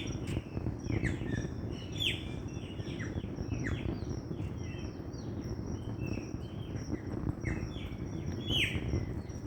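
Dawn chorus of several songbirds: many short, quick chirps that slide downward, overlapping irregularly, over a steady low background rumble.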